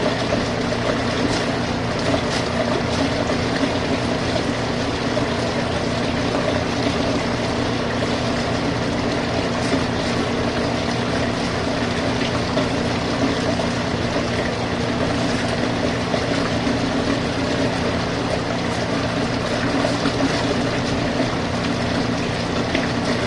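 Small portable washing machine running steadily, its motor humming while water churns in the tub during a rinse.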